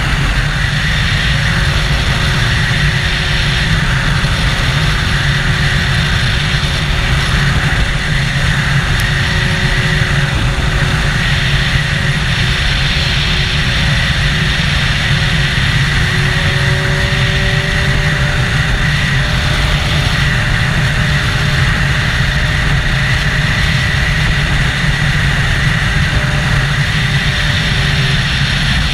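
Triumph Daytona 675's inline three-cylinder engine, breathing through an Arrow exhaust, running at a steady cruising throttle with no revving or gear changes. A steady rush of wind and road noise runs underneath it.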